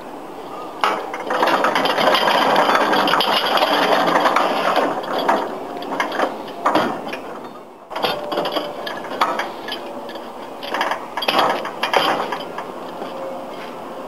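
Rattling and scraping of a steel snowplough frame wheeled on small casters over concrete. Later, a series of sharp metal clanks and knocks as its mount is fitted into the vehicle's front hitch receiver.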